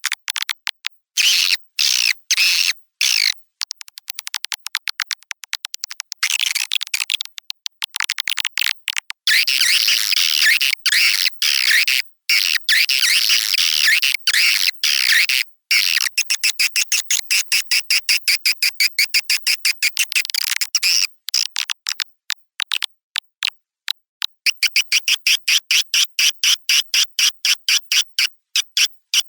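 Recorded swiftlet calls played as a lure sound to call swiftlets into a swiftlet house. The calls are rapid, high-pitched chirps and twitters in quick pulses, with short gaps and no low sound at all.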